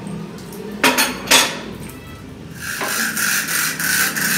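Chain hoist being worked: two sharp metal clanks about a second in, then a continuous metallic chain rattle from a little past halfway.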